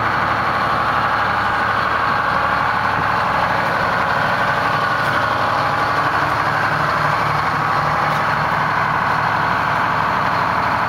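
Hatteras yacht's diesel engine idling steadily, a fast even pulsing chug over a low hum.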